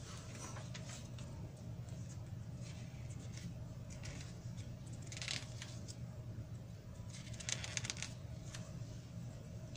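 Glossy magazine paper rustling in short bursts as the pages are handled and turned, over a low steady hum.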